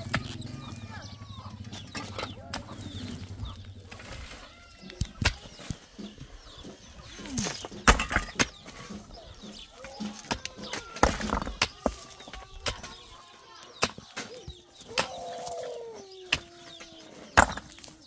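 A pickaxe and a shovel striking and scraping into stony soil, with sharp irregular hits every second or so, while chickens cluck in the background.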